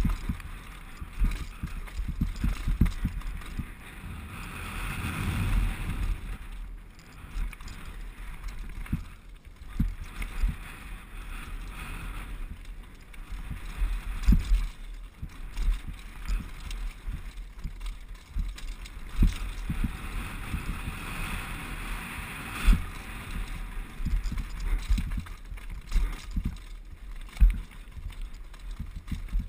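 Downhill mountain bike, a 2011 Specialized Big Hit, running fast over a rocky gravel track: a steady rush of tyre noise and wind on the helmet camera, broken by frequent irregular knocks and rattles as the wheels and suspension hit rocks.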